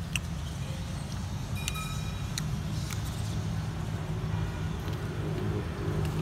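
Steady low rumble of road traffic, with a few sharp clicks scattered through it.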